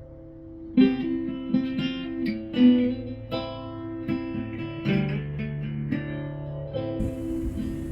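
Background music: acoustic guitar picked and strummed over a held low note, the first chord coming about a second in.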